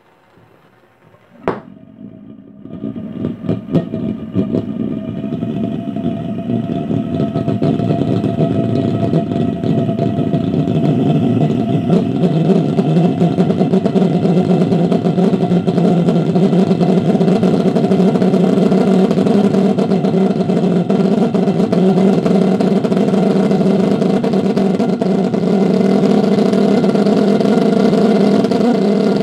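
Homemade valveless pulse jet engine, fed propane and compressed air, lighting with a sharp pop about a second and a half in. It sputters with irregular pops for a few seconds, then settles into a loud, steady pitched drone that builds over several seconds and holds.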